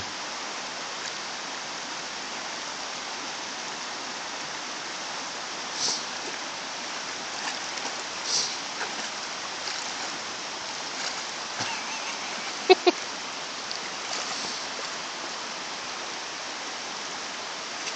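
Creek water running steadily over shallow rocks, with a few small splashes from a puppy wading through it. Two short, sharp sounds come close together about two-thirds of the way through.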